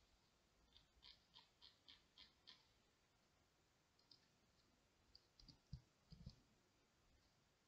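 Faint clicks of a computer mouse and keyboard: a quick, evenly spaced run of about six clicks, then a few scattered clicks and some low dull thumps a little before the two-thirds mark.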